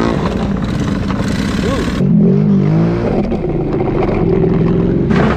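ATV engine revving up and down as the quad drives through mud and water, with a cut about two seconds in to another run, where the engine keeps revving under load.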